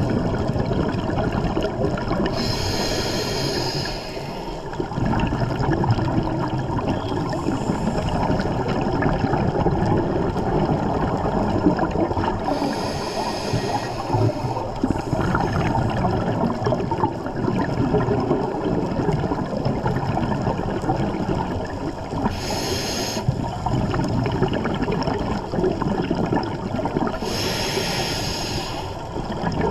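Scuba diver breathing underwater: a constant churning of water and exhaust bubbles, with four short hissing breaths drawn through the regulator.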